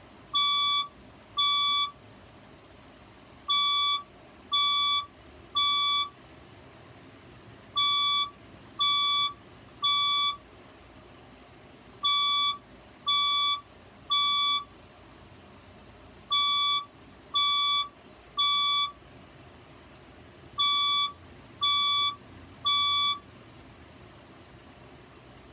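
Fire alarm speaker strobe sounding the temporal-3 evacuation tone: groups of three evenly spaced beeps, each group followed by a longer pause, repeating about every four seconds. The beeping stops near the end.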